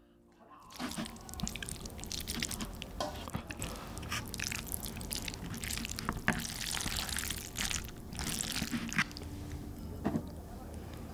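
Wooden chopsticks mixing jajangmyeon noodles through thick black bean sauce in a plastic bowl: sticky, wet squishing and dripping made of many short clicks, starting about a second in.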